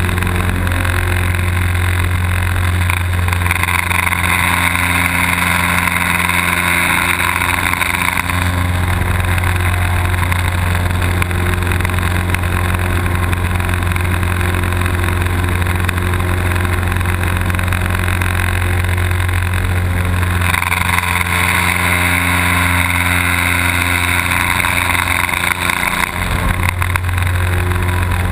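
Light aerobatic plane's piston engine and propeller droning steadily, heard from inside the cockpit. A brighter rushing sound swells in twice for several seconds, and the low drone shifts slightly as it does.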